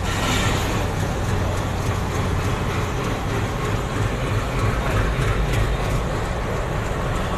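WDM-3A diesel locomotive's engine running as it hauls a long goods train past beneath, a steady low throb with rail noise.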